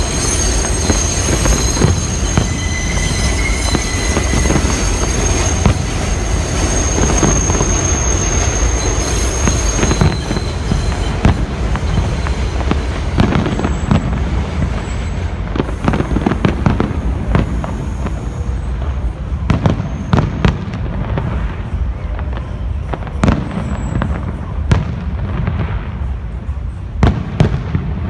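Fireworks shells bursting as scattered sharp bangs, standing out more clearly in the second half. Under them in the first part, a train's rumble and high steady wheel squeal fade out about ten seconds in.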